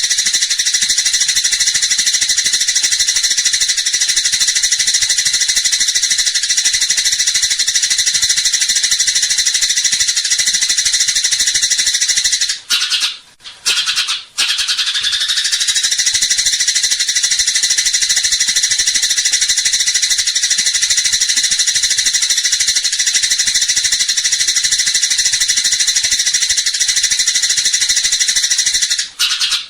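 Dense, continuous high chattering of fighting Eurasian tree sparrows (burung gereja), a looped birdsong track for tutoring captive songbirds. It breaks off briefly twice about 13 and 14 seconds in, then resumes.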